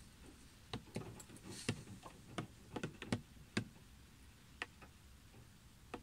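Single raindrops tapping on a car's windshield and body, heard from inside the car: about a dozen sharp, irregular taps, bunched together in the first half and sparser after, over a faint steady hiss.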